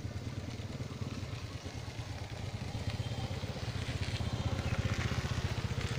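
A small engine idling steadily, a fast even pulsing that grows a little louder about halfway through.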